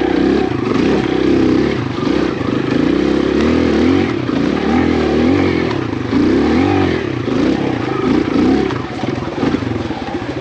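Kawasaki KLX140 dirt bike's single-cylinder four-stroke engine under way on a rough trail, revving up and falling back again and again as the rider works the throttle, about once a second.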